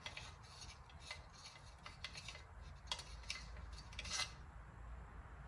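Faint metal clicks and clinks of hand tools against a chainsaw being taken apart: a handful of scattered sharp ticks, with a slightly longer scrape just after four seconds in.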